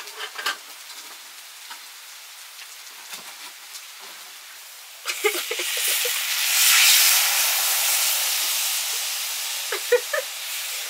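Food frying: a faint sizzle with a few utensil knocks, then about five seconds in a loud sizzle starts suddenly, as when something goes into hot oil, and slowly eases off.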